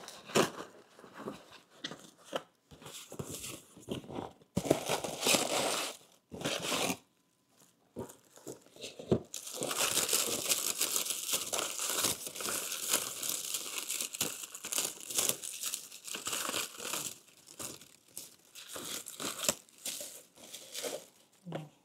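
A parcel being opened by hand: packaging tearing and plastic wrap crinkling, in scattered rustles at first, then continuous rustling for most of the second half.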